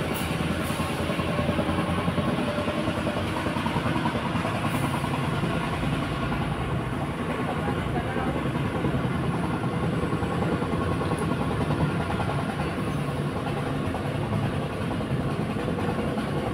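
A steady mechanical running noise with a low hum, unchanging throughout.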